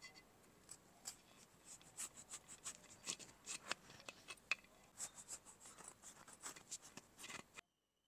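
A knife cutting through the crisp baked lattice crust of an apple pie: a quick run of short crackling crunches and scrapes that stops suddenly near the end.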